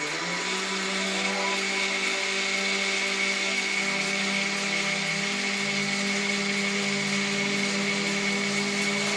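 Repaired Oster blender's motor running steadily while blending papaya juice, with a steady hum and a high whine; its pitch steps up slightly shortly after the start and then holds.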